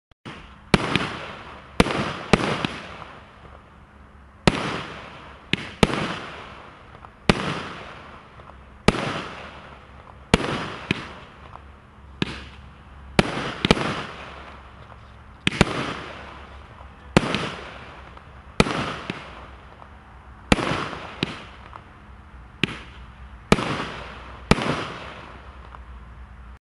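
A 16-shot, 25 mm firework cake firing, about sixteen sharp bangs at irregular intervals of one to two seconds, each fading out over about a second.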